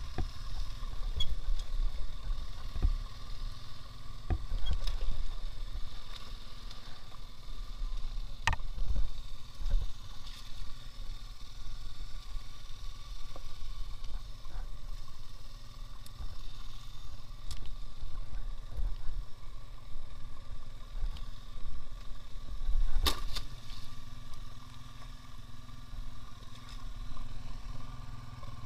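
Engine of a 2x2 all-wheel-drive motorcycle running steadily, with scattered sharp knocks and clatter, the loudest about 8 and 23 seconds in.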